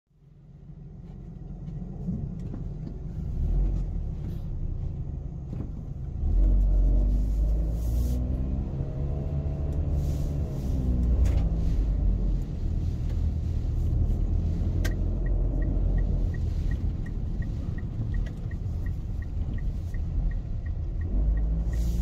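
Gusty typhoon wind buffeting the microphone as a low rumble, with a car passing about ten seconds in. From about fifteen seconds a light, even ticking comes two or three times a second.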